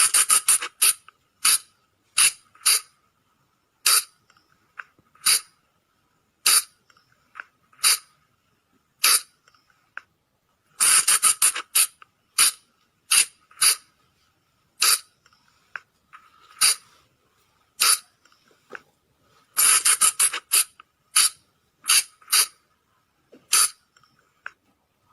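Sunda colugo (flying lemur) calls: short, sharp, shrill calls repeated at irregular intervals, some singly and some in quick runs of four or five. A faint steady high tone runs beneath them.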